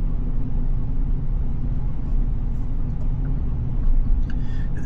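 Steady low rumble of a Tesla Cybertruck's tyres on a rain-soaked road, heard inside the cabin, with a hiss of rain and water spray above it.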